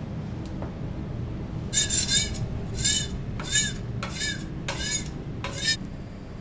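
Metal spatula scraping across a flat-top griddle in about six short rasping strokes, a little over half a second apart, starting a couple of seconds in. A steady low hum runs underneath.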